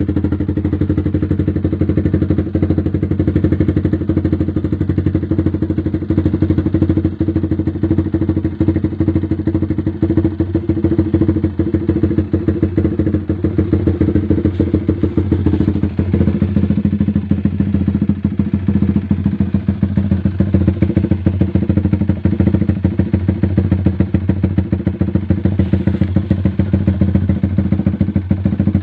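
Yamaha Vixion's single-cylinder four-stroke engine idling steadily through an aftermarket RCB slip-on exhaust, a deep, bass-heavy exhaust note with an even fast pulse.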